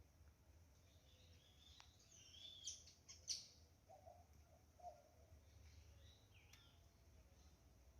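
Faint bird calls: several short, high chirps and whistles, the loudest a few seconds in, with a few brief low notes in the middle and another chirp later.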